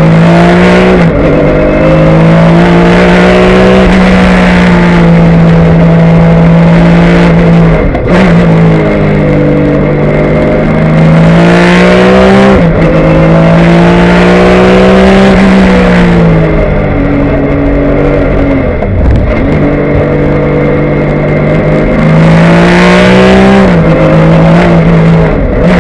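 Porsche 996 GT3 Cup race car's flat-six engine, heard loud from inside the cockpit at racing speed. Its pitch climbs under throttle and drops at each gear change or lift for braking, several times over.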